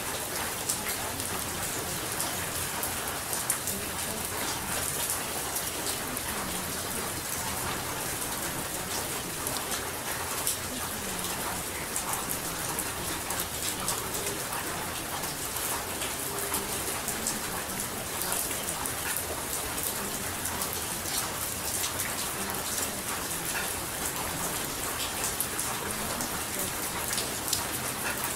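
Steady rain: an even hiss with many small, sharp drop ticks.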